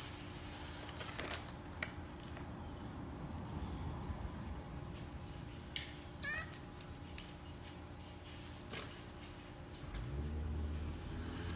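A marmoset gives a few tiny, very high-pitched chirps and, about six seconds in, one longer squeaky call that falls in pitch. Light clicks come now and then from its climbing on a cat tree, over a low steady hum.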